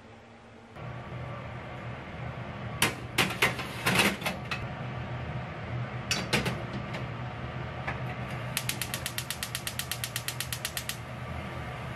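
Gas stove burner's igniter clicking rapidly, about eight clicks a second for a couple of seconds, as the burner lights. A steady hum starts about a second in, and a few sharp knocks and clatters come before the clicking.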